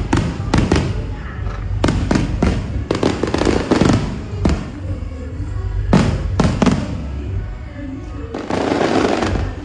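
Fireworks going off: an irregular series of sharp bangs, at times several a second, with a dense crackling stretch near the end.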